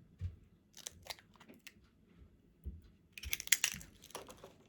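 Kitchen handling sounds: scattered light clicks and knocks, then a short crinkling rustle about three seconds in.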